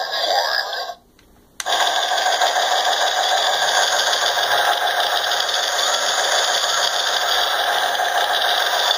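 Sound clip from the movie played through the built-in speaker of a NECA ED-209 figure: the end of a sound in the first second, a short silence, then a long unbroken burst of rapid machine-gun fire.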